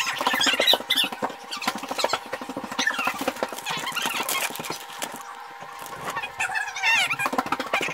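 Plastic bag of shredded lettuce crinkling and rustling as it is shaken out over food, with repeated high-pitched, wavering squeals over it and a faint steady hum underneath.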